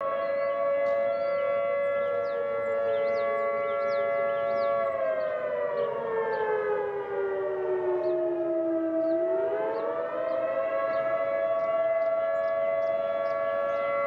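Civil defense warning siren sounding the attack signal, two notes at once. It holds steady, sinks in pitch over about four seconds, then climbs quickly back and holds again: the up-and-down wail that signals an enemy attack.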